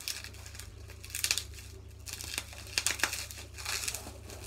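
Wrapping crinkling and tearing as it is pulled off a small item by hand, in irregular rustling bursts.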